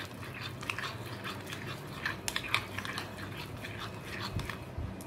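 Thick jalebi batter of flour and curd being beaten by hand in a glass bowl: irregular wet squelches and quick sticky clicks.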